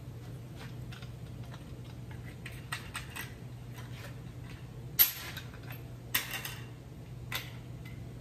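Scattered light metallic clicks and taps of tools and steel parts being handled in a workshop, with one sharper clank about five seconds in and a few more shortly after, over a steady low hum.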